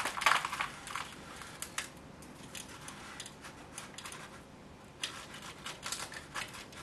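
Gritty bonsai substrate being pressed and worked by hand into a plastic seedling-tray cell: crunching and rustling with scattered small clicks, loudest in the first half-second and again about five seconds in.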